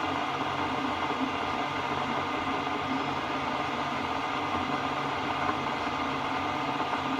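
Okuma-Howa STM 2V vertical milling machine running steadily, a constant machine hum with several steady tones.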